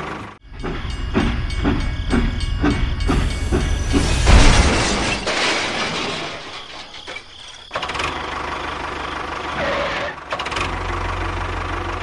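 Train and engine sound effects for a toy steam train: a rhythmic chugging at about three beats a second, the loudest burst about four seconds in, then a steady low engine hum from about eight seconds in.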